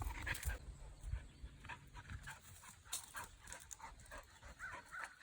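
A dog panting rapidly, in quick short breaths.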